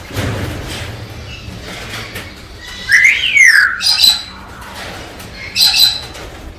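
Galah cockatoo calling: a loud screech about three seconds in that rises and then falls in pitch, followed by shorter, higher squawks a second later and again near the end.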